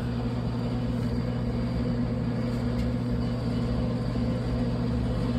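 Steady low hum at a constant pitch, unchanging throughout, like a motor or machine running at a fixed speed.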